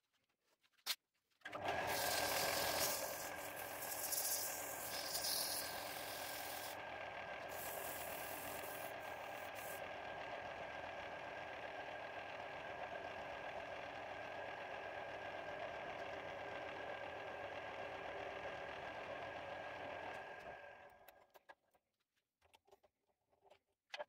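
A small lathe starts up and runs steadily with a light whine while a wooden knob is finished on it, a cloth held against the spinning wood; a loud rubbing hiss sits over the motor for the first several seconds. The lathe winds down and stops near the end, followed by a few light clicks at the chuck.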